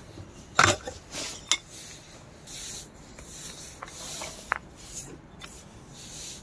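An antler piece being handled and reclamped in a metal bench vise: a few sharp knocks and clicks, the loudest about half a second in, among short rubbing scrapes.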